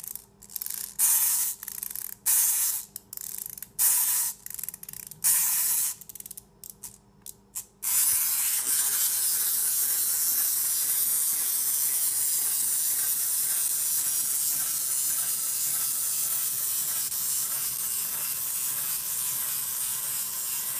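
Small clockwork wind-up toy being wound by its key in a series of short ratcheting bursts, then released, its spring motor whirring steadily as it walks and cutting off abruptly near the end.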